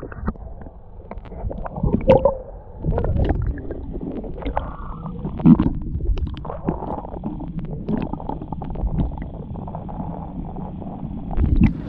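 Muffled knocks and bumps, irregular and frequent, over a low gurgling, sloshing rumble of water.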